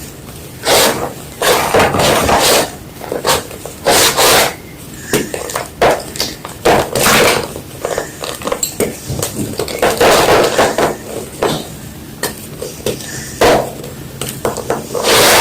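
A fresh white block of gym chalk being crunched and crushed, giving a run of irregular, sharp crunches with short gaps between them.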